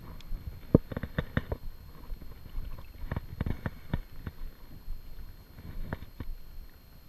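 Scattered sharp knocks and taps from a landing net holding a redfish against a boat's hull, in quick groups about a second in, again around three to four seconds, and near the end.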